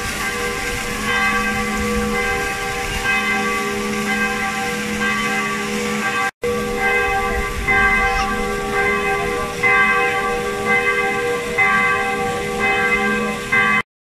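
Church bells ringing a peal, many fixed notes struck over and over in a repeating pattern, over the steady splashing of a fountain.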